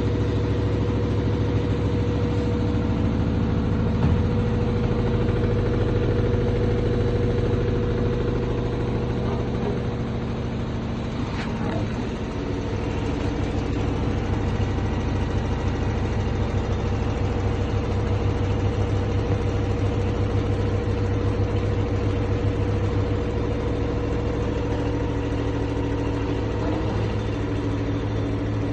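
LG inverter washing machine running, a steady machine hum with a pulsing low drone that eases slightly about ten seconds in and then picks up again.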